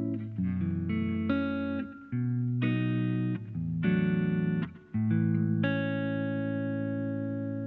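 Electric guitar played through a compressor effect pedal: a run of chords and notes changing every half second or so, then one chord held and ringing out evenly for nearly three seconds.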